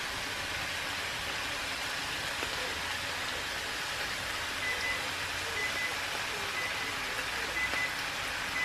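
Chicken pieces and vegetables sizzling steadily in a hot frying pan.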